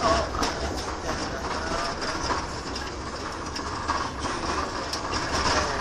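Road noise inside a moving car: a steady low rumble with frequent small rattles and knocks.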